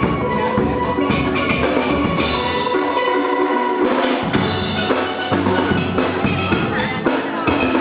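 Steel band playing live: ringing steel pans carrying the melody and chords over drums keeping the beat. The low end drops out for about a second and a half midway, then the bass and drums come back in.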